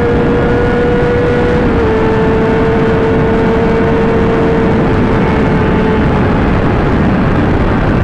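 Inline-four supersport motorcycle engine held at a steady high-pitched note at speed, dipping slightly in pitch about two seconds in and fading near the end, under heavy wind noise.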